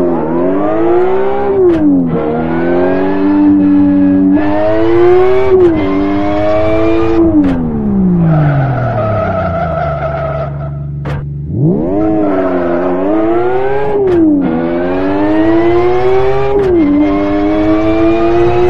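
Racing simulator game's car engine revving up through the gears, its pitch climbing and then dropping back at each shift. About seven seconds in it winds down for several seconds with a high tyre squeal, then accelerates through the gears again.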